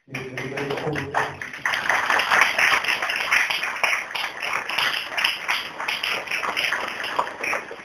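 Audience applauding: many people clapping in a dense, continuous patter, with a brief low pitched sound under the first second or so.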